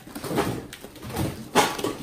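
Girls shrieking and giggling while they scoop and fling handfuls of wet fake snow at each other, with a short rushing swish of flung snow about one and a half seconds in.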